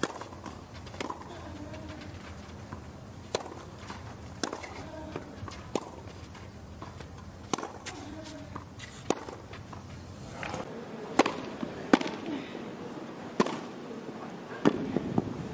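Tennis balls struck by rackets in rallies: sharp pops one to two seconds apart. Short vocal grunts follow some of the shots.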